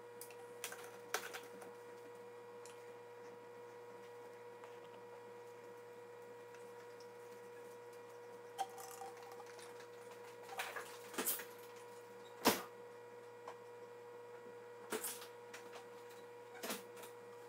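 A steady electrical hum with a handful of short, sharp clicks and crackles scattered through it, the loudest about halfway through.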